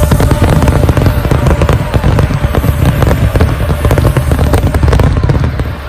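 Dense barrage of aerial fireworks shells bursting together: many rapid cracks over a continuous deep rumble, dying away suddenly near the end.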